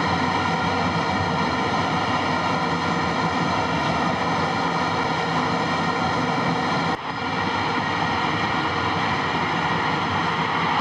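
Football stadium crowd noise: a steady, dense din with a sustained droning tone running through it. It briefly dips about seven seconds in.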